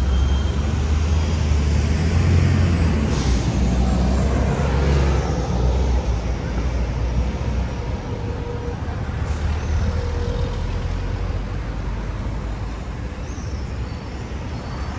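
City street traffic: vehicles passing with a deep engine rumble that is strongest for the first few seconds and eases off after about six seconds, over a steady background of road noise.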